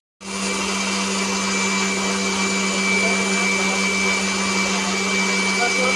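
A small electric motor whirring steadily with a low hum, starting a moment in after a brief silence.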